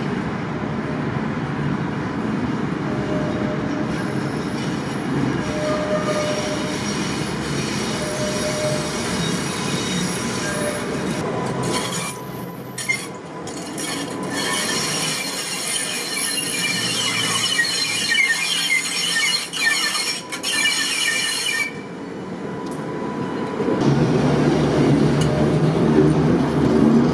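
Tatra T5C5 tram rolling along curved track: the wheels squeal high and shrill for several seconds in the middle, then a louder low rumble as the cars pass close by near the end.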